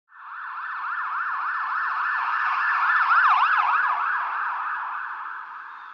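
Emergency siren in a fast up-and-down yelp, swelling to its loudest about three seconds in and then fading away, like a siren passing by.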